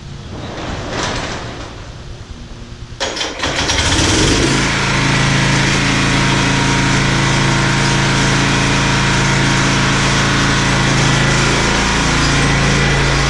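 A walk-behind lawn mower's gas engine starts about three seconds in and then runs steadily at a constant speed.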